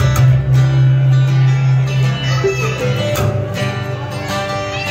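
Live acoustic string band playing a bluegrass-style tune: strummed acoustic guitar over plucked upright double bass, with mandolin.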